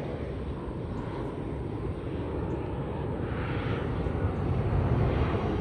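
A steady low rumble that swells louder near the end.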